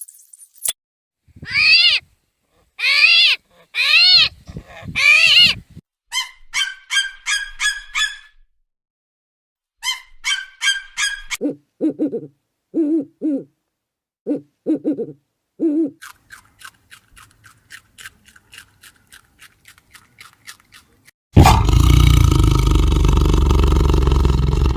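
A series of animal calls, one kind after another: four rising-and-falling pitched calls, then runs of quick chattering notes and a string of short low hoots. Near the end comes a loud, rough, noisy roar that lasts about three seconds.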